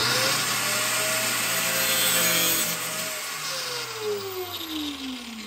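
Small handheld power tool spinning up and cutting through stripped bilge-pump mounting screws: a loud grinding rasp over a steady motor whine. About three seconds in the cutting stops and the motor winds down with a falling pitch.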